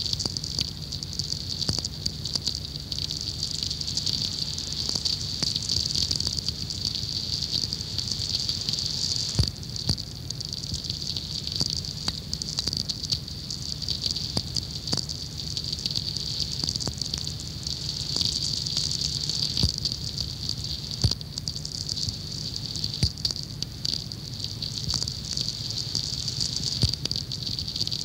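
Sferics, natural radio impulses from distant lightning made audible through a receiver: irregular crackling clicks over a steady hiss.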